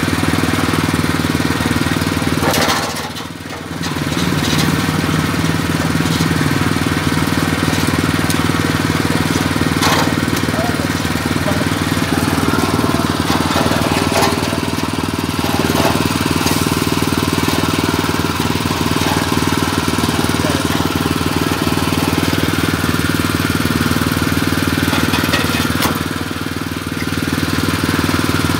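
Coconut shell peeling machine running, its spinning toothed cutter grinding the shell off a coconut held against it: a steady, loud grinding over the machine's drive hum. The grinding eases briefly twice, about three seconds in and near the end.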